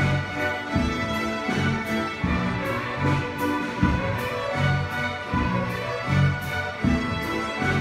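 School string orchestra of violins, violas, cellos and double bass playing a lively piece together, with a steady, strongly accented rhythm in the low strings.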